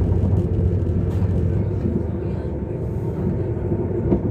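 Class 195 diesel multiple unit's underfloor diesel engine running under way, heard from inside the carriage: a steady low drone that eases slightly about halfway through.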